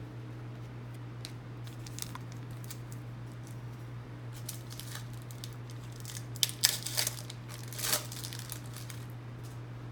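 A trading card pack's wrapper being crinkled and torn open, with scattered sharp crackles that bunch up and grow louder about six to eight seconds in, over a steady low hum.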